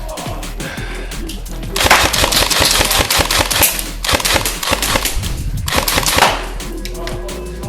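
Airsoft guns firing on full auto: two long strings of rapid shots, each about two seconds, the first starting about two seconds in. Background music with a steady beat runs underneath.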